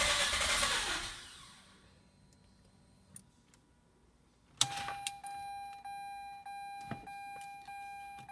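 The 2004 Mazda RX-8's rotary engine runs for about a second and then dies away. After a short quiet with a couple of faint clicks, there is a click and the car's electronic warning chime starts dinging at an even pace, a little under twice a second.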